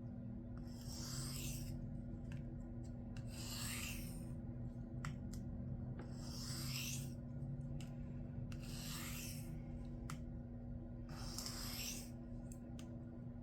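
Knife blade drawn across a sharpening stone in five slow, even strokes about two and a half seconds apart, each a short hissing scrape. These are light refinement passes meant to fatigue off a stubborn burr that keeps flipping rather than breaking away.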